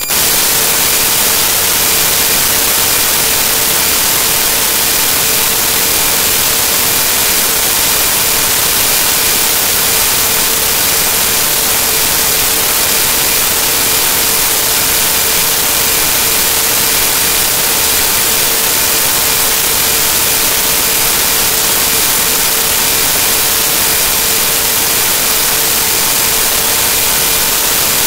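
Loud, steady static hiss, like white noise, with a faint steady hum tone underneath. It cuts in abruptly and is typical of a corrupted digital file played back as sound.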